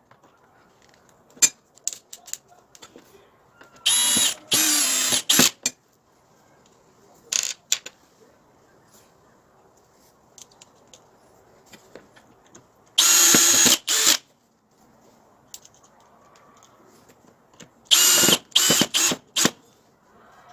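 Electric power tool motor switched on and off in short bursts of about a second each, with a quick, brief blip and then several rapid on-off pulses near the end.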